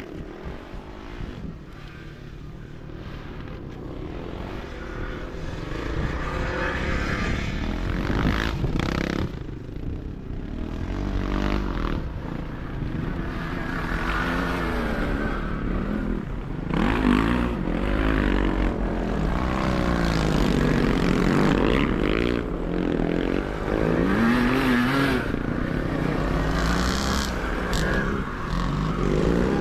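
Motocross sidecar outfits racing, several engines revving up and down as they pass, growing louder over the first several seconds.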